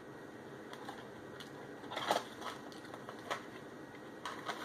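Faint crunching of crispy breaded chicken fries being bitten and chewed, a few short crackles spread out, with several close together near the end.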